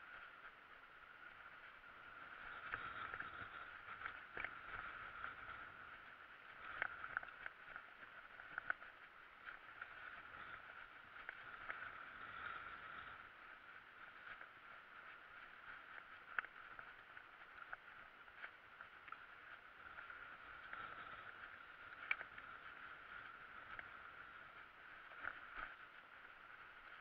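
Mountain bike rolling over a bumpy dirt singletrack: a faint steady rushing with irregular knocks and rattles from the bike and handlebar as the wheels hit bumps.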